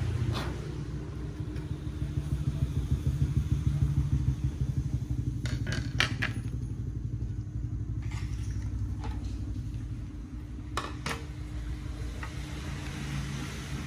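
Makita 1900B 82 mm electric hand planer running free, not cutting: a steady motor and cutter-drum whir with a fast flutter, louder for a few seconds near the start. A few sharp clicks about six seconds in and again about eleven seconds in as the planer is handled.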